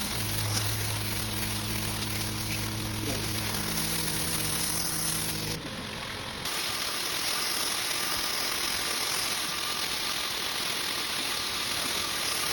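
Steady hiss of water spraying as a soot-covered rug is rinsed on a wash floor, over the steady hum of a running machine motor that drops out about halfway through.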